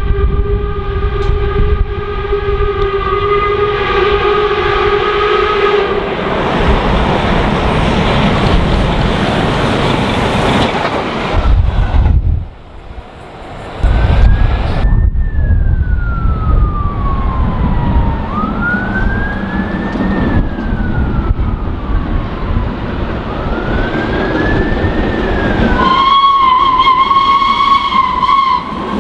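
An electric express train's horn held for about six seconds, then the train passing with steady rail noise. After a cut, a siren wails up and down three times over the rail noise, and near the end a steam locomotive's whistle sounds.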